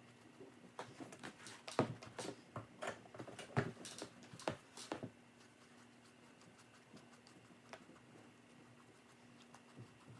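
Faint tapping and scratching of a paintbrush dabbing and stroking paint onto a football cleat, with a quick run of small clicks in the first half. Only a low steady hum and a few stray ticks follow.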